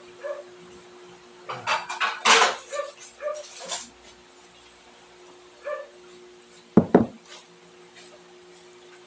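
A dog whining and yipping in short calls, with a cluster of calls in the first few seconds and two loud sharp barks in quick succession about seven seconds in.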